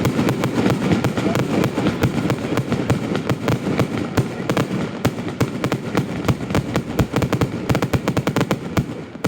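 Fireworks display firing a dense barrage: rapid sharp cracks and bangs, many per second, over a continuous low rumble of bursting shells, thinning briefly near the end.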